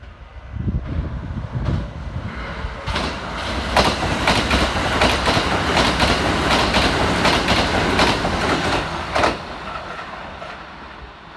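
Kintetsu limited express, a 22600 series Ace coupled to a 22000 series ACE, running through the station without stopping. A rumble builds, then rapid clacking of the wheels over the rail joints runs for several seconds and fades as the train draws away near the end.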